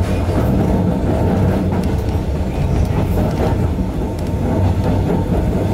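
Narrow-gauge 260 series electric train running along the track, heard from inside the driver's cab: a steady low rumble of wheels and running gear, with a few faint clicks now and then.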